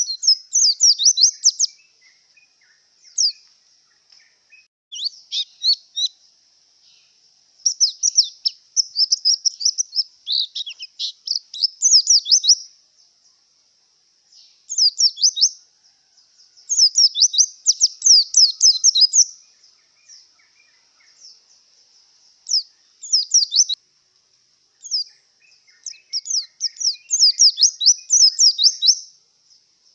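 A white-eye (pleci) singing in breeding condition: bursts of rapid, high twittering notes, each phrase lasting from a moment to a few seconds, separated by short pauses.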